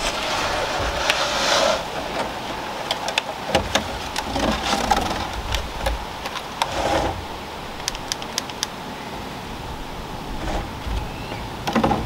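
Rustling and crackling of a plastic seedling cell tray being handled, with scattered sharp clicks, as Swiss chard seedlings are worked out of their cells.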